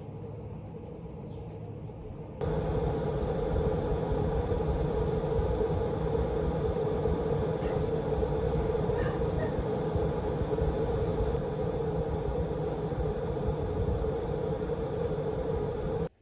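Vacuum cleaner motor running with a steady, strong hum. It starts abruptly about two seconds in and cuts off abruptly near the end, with a quieter steady hum before it starts.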